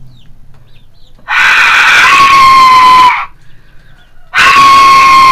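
Fired clay Aztec death whistle blown twice, each blast about two seconds long. It makes a harsh, chaotic scream, and a steadier whistle tone comes through partway and sags at the end of each blast.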